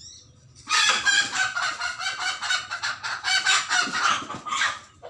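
A bird calling loudly in a rapid, continuous run of notes. It starts under a second in and stops just before the end.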